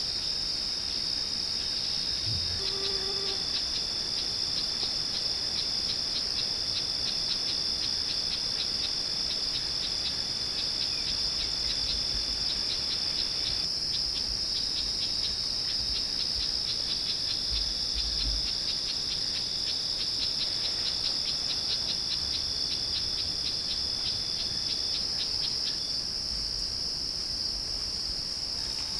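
Chorus of crickets and other insects: a steady high-pitched drone, with a second rapidly pulsing trill on top that stops a few seconds before the end.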